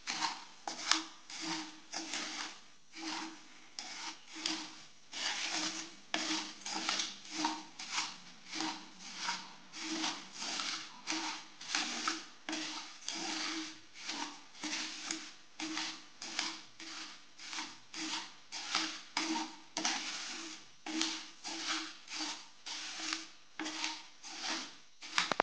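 Wooden spatula scraping and stirring dry granulated sugar around a non-stick pan, a steady run of gritty strokes about two a second. The sugar is still unmelted crystals being heated with no water or ghee added.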